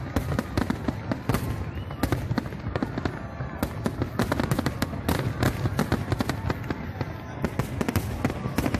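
Fireworks display: a rapid, unbroken run of bangs from aerial shells bursting, several a second, over a steady low rumble.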